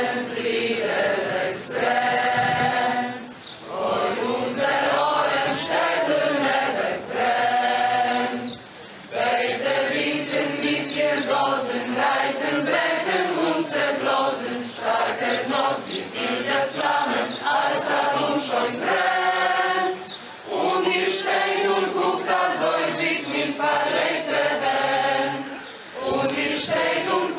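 A choir singing a Yiddish song in long phrases, with short breaks between them.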